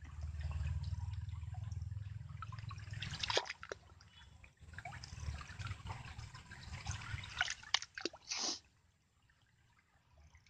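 Hands digging in shallow muddy stream water to open up an eel's burrow, with wet splashing, dripping and squelching of mud. A low rumble runs through the first few seconds, and a louder splash comes about two seconds before the end.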